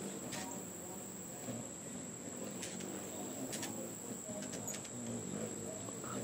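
Steady high-pitched drone of an insect chorus, such as crickets or katydids, with a few short sharp clicks scattered through it.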